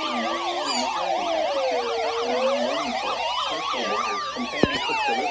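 Several sirens sounding together: a slow wail rising and falling over fast yelping tones, with a sharp click about four and a half seconds in.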